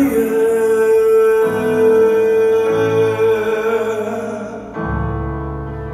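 Male Southern gospel quartet singing with piano, the lead tenor holding one long high note over the harmony while the piano chords change beneath it. The held note cuts off about four and a half seconds in, leaving a low sustained chord: the close of the song.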